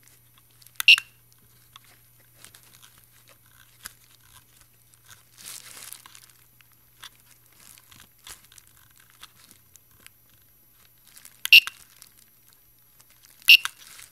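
Three short beeps from the buzzer on a 3D printer's LCD controller, about a second in and twice near the end, as its rotary knob is pressed to pick menu items. Between them come faint clicks of the knob being turned and a crinkling rustle near the middle.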